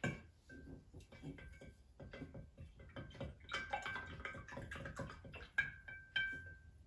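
Wooden stick stirring baking soda into water in a tall glass vase, clinking against the glass over and over. Many knocks leave a high ringing tone from the glass, and two sharp clinks near the end ring longest.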